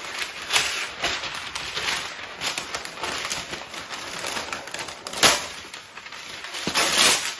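Greaseproof baking paper rustling and crinkling as it is unrolled from its box and torn off, with louder crackles about five seconds in and again near the end.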